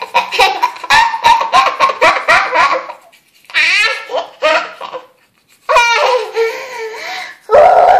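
A four-year-old girl laughing hard while brushing her teeth: a quick run of high-pitched laughs for about three seconds, then, after short pauses, a few squealing bursts that slide down in pitch, with a loud one near the end.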